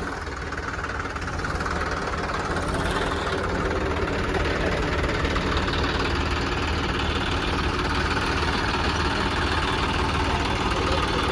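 Diesel tractor engine running steadily, growing louder over the first few seconds and then holding.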